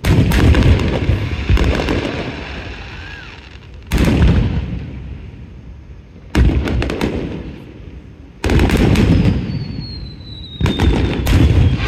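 Aerial fireworks shells bursting: six booms a couple of seconds apart, each trailing off in crackling and rumbling. A thin falling whistle comes near the end.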